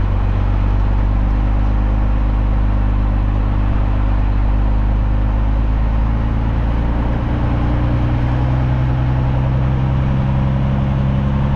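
Diesel engine running steadily at a constant speed, its pitch shifting slightly about six seconds in.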